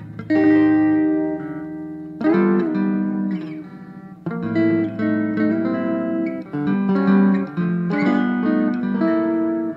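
Two overdubbed Fender Telecaster electric guitar rhythm parts played as a duet through a custom-built amplifier, one on both pickups and one on the bridge pickup. Chords are struck every second or two and left to ring.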